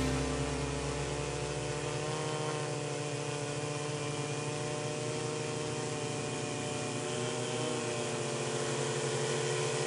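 DJI Phantom Vision 2 quadcopter hovering close by, its four electric motors and propellers giving a steady buzz of several tones that waver slightly in pitch now and then.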